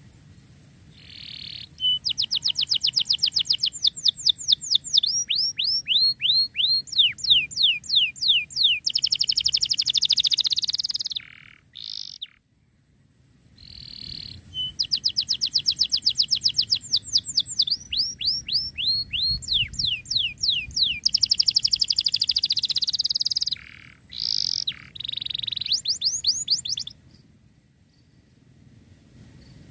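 Domestic canary singing two long, loud song phrases about two seconds apart. Each phrase is a fast run of descending whistled sweeps, about four or five a second, that breaks into a dense buzzing roll.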